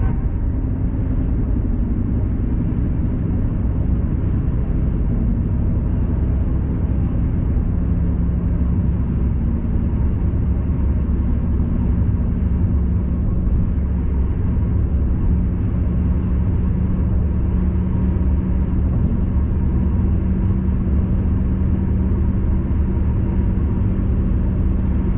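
Steady road and tyre rumble heard inside a car cabin at expressway speed, with a low steady hum that comes up about eight seconds in.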